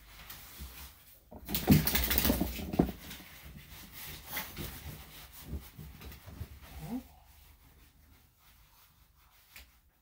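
A thick towel rubbing a wet Yorkshire terrier cross in a tiled grooming tub, with a loud burst of rubbing and movement lasting about a second, about two seconds in. Smaller scuffs follow, and a short rising note comes near seven seconds.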